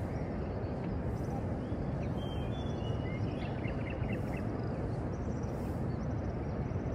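Outdoor city ambience: a steady low rumble of background noise, with a quick run of faint bird chirps about three seconds in.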